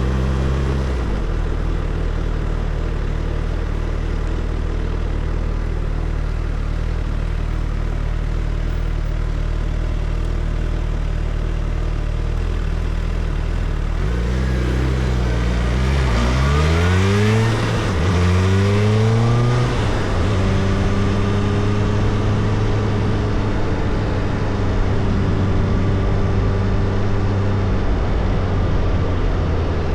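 Suzuki Hayabusa's inline-four engine under way, running steadily, then about halfway through it revs up hard twice in quick succession with a gear change between, and settles into a steady, higher-pitched cruise.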